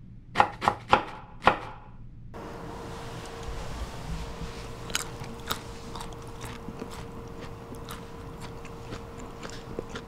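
Four sharp, crisp clicks in quick succession over the first second and a half, then a faint steady hum with scattered small clicks.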